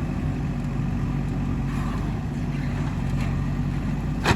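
Diesel engine of a digging machine running steadily, with one sharp knock near the end.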